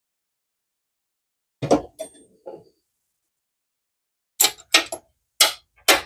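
Clicks and knocks of hand work with tools and small parts: a short clatter about a second and a half in, then four sharp clicks close together near the end.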